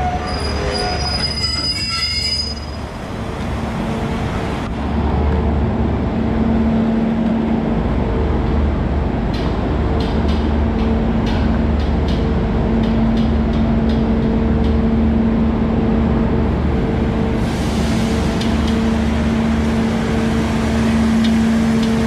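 Trains standing at a station platform with their engines running: a steady hum over a low rumble, with a brief high squeal in the first two seconds.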